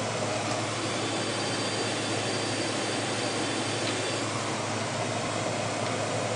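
Room air conditioner running, a steady even noise with a low hum underneath.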